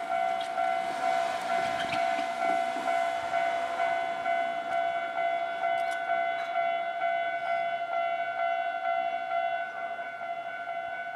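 Japanese railway level-crossing warning bell ringing as a steady, repeating pitched ding, the signal that a train is approaching or passing.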